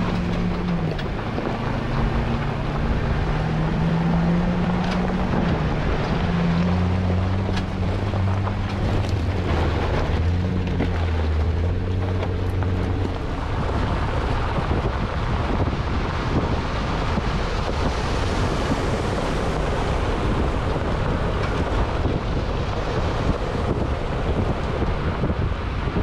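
Rushing river water with wind buffeting the microphone. Through about the first half, a Jeep engine runs under it, its pitch rising and falling as the vehicle fords the river.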